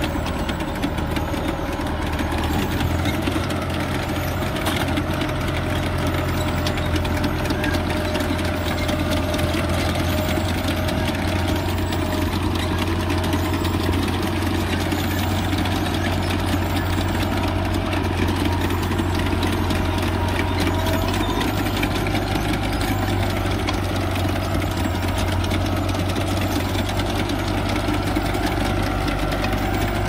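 A 640 tractor's diesel engine running steadily while pulling a multi-row maize planter through the field, with a fine, rapid rattling over the low engine drone.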